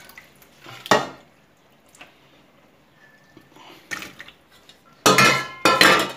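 Stainless steel pot and perforated colander insert knocking and clanking together against a steel sink: one sharp knock about a second in, then a loud run of ringing metallic clatter near the end.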